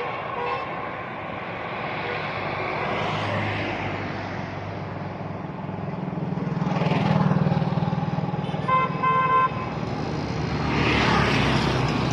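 Road traffic: a steady wash of passing vehicles, with engines swelling as cars go by, and a car horn tooting twice about nine seconds in.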